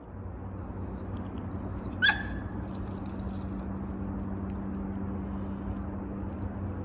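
A single sharp dog bark about two seconds in, over a steady background hum with a few short bird chirps early on.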